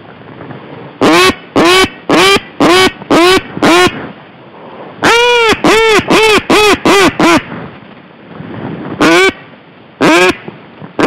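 Loud duck quacks, very close, in a hen-mallard pattern: six evenly spaced quacks, then a quicker run of about seven, then two more spaced out near the end, over steady wind noise.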